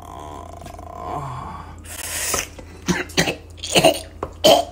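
A man coughing: a few short, sharp coughs in the second half.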